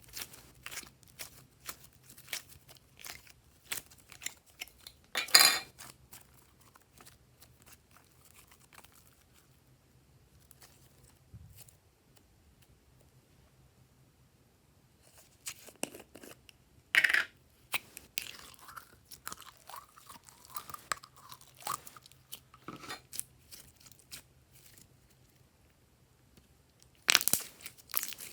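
Glossy slime being handled and kneaded, with irregular sticky clicks, pops and crackles. The louder bursts of crackling come about five seconds in, around seventeen seconds, and near the end, and there is a quieter spell in the middle.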